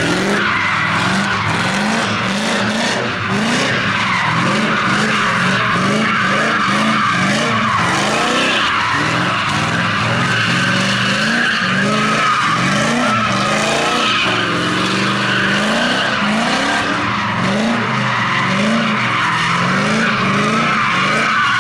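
Drift car being driven sideways: the tyres squeal without a break while the engine revs climb and drop over and over, about once a second.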